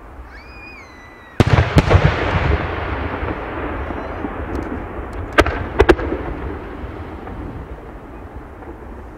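Aerial firework shells bursting: a sharp loud bang about a second and a half in and another right after, followed by a long echoing, crackling tail that slowly fades. Two more sharp bangs come close together a little past the middle. A brief high whistle sounds just before the first bang.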